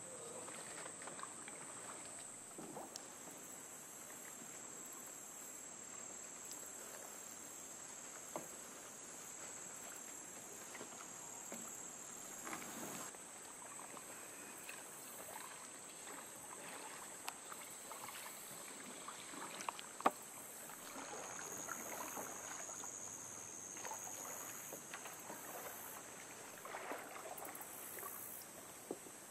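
Quiet kayak paddling on calm water: soft paddle strokes and drips with a few light knocks, under a steady high-pitched insect drone from the swamp. A second, lower insect tone joins for a few seconds past the middle.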